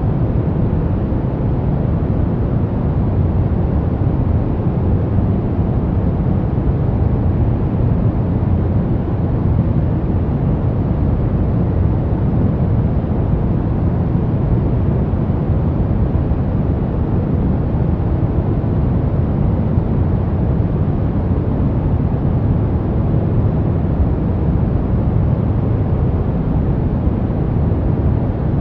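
Steady brown noise: a constant deep rushing hiss, strongest in the low end and fading toward the highs, with no change in level.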